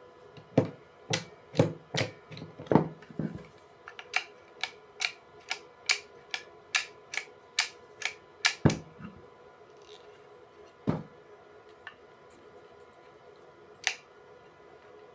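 Electrical contactor clacking: a run of sharp mechanical clacks, about two a second, some with a low thud, then a few single clacks near the end, over a faint steady hum.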